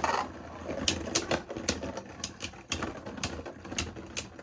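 Two Beyblade Burst tops, Hyperion Burn and Helios Volcano, battling in a plastic stadium. They make sharp, irregular clacks as they collide and strike each other, about two to three a second.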